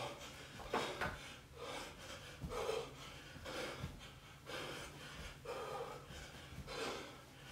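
A man breathing hard from exertion, a forceful breath roughly once a second in time with repeated bend-and-stand bodyweight exercise, with a few faint thuds underneath.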